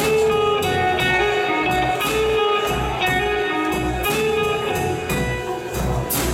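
Live band playing an instrumental passage: two electric guitars over a Ludwig drum kit keeping a steady beat with cymbals, a cymbal crash near the end.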